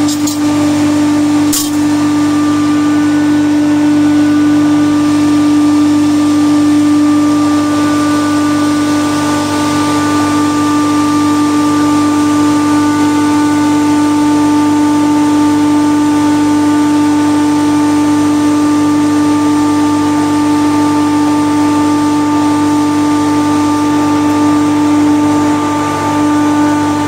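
Steady machinery drone with a strong hum and a hiss, unchanging throughout, typical of equipment running in a chiller plant room. Two light metal clicks sound near the start.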